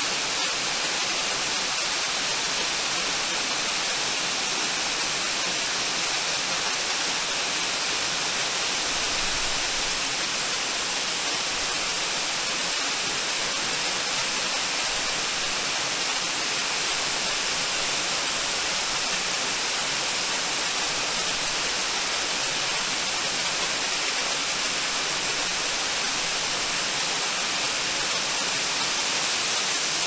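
Waterfall pouring onto rocks and into a shallow plunge pool: a steady, unbroken rush of falling water.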